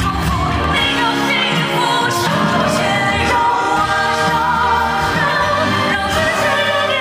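A male singer sings a Mandarin pop ballad live on stage, holding long, wavering notes over band accompaniment.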